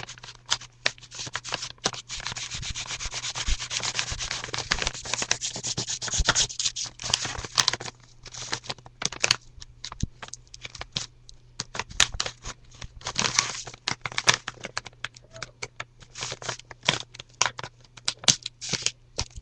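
Package being worked open carefully by hand: continuous scraping and rubbing on tape and packaging, broken by many sharp clicks and crinkles.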